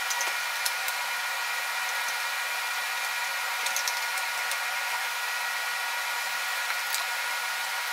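Steady fan-like hiss with a few faint, light clicks of Lego pieces being handled.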